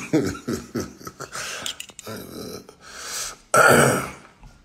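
A man's wordless vocal noises, with one loud, harsh burst about three and a half seconds in.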